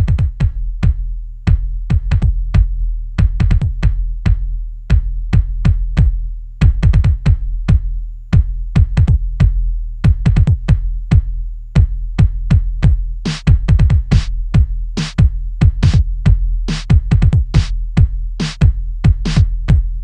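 Live electronic music from a drum machine: a syncopated pattern of kicks and clicky percussion over a steady deep bass, with hissing hi-hat-like hits joining about thirteen seconds in.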